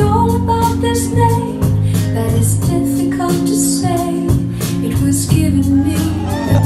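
Music with a steady beat and a bass line, with singing.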